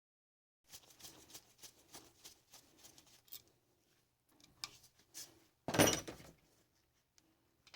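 Faint small clicks and handling noises from a car starter motor being taken apart by hand as its cover comes off, at first about three clicks a second. About six seconds in comes a louder noise of about half a second.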